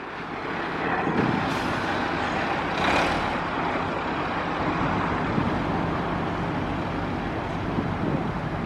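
Bedford TK lorry driving past, its engine running steadily, with road noise swelling as it comes closest about three seconds in.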